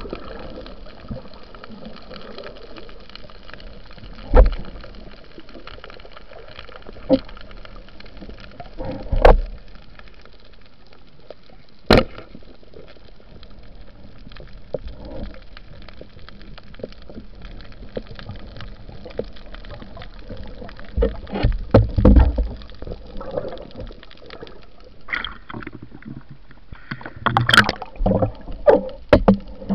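Underwater sound picked up by a diving camera: a steady water hiss with scattered sharp clicks and knocks. Near the end comes a busy run of knocks and bubbling as the water churns.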